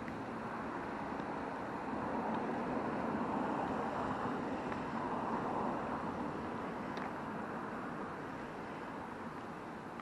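A car passing on the road, its tyre and engine noise swelling about two seconds in and fading away over the following seconds.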